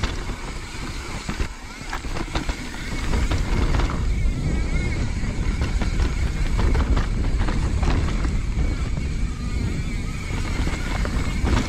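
Mountain bike ridden down a rooty trail: a steady low rumble with repeated clattering knocks as the bike hits roots and small drops.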